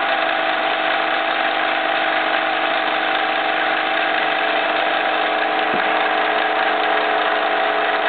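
Miniature Jensen 75 live-steam engine running flat out at around 1,600 rpm, driving a small plastic Capsela fan by belt at about 1,770 rpm. A loud, steady whir with a constant hum.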